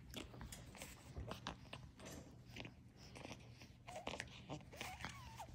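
Puggle puppies chewing and gnawing on plush toys: faint, irregular clicks and rustles of small teeth on fabric and stuffing, with a few short high squeaks near the end.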